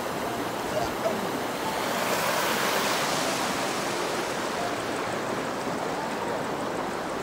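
Creek water running and splashing over rocks as a steady rushing noise, a little louder about two seconds in.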